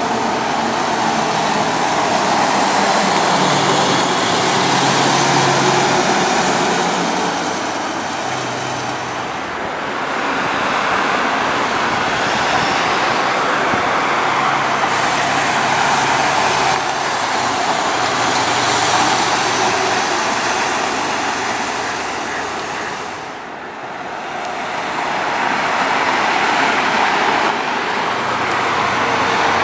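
Mercedes-Benz Citaro diesel city buses running and driving past, their engine note shifting in pitch over steady road and traffic noise.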